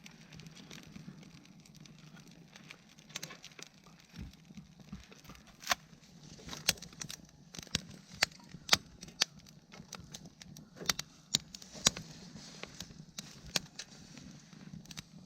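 Wood fire crackling, with irregular sharp pops over a steady low background.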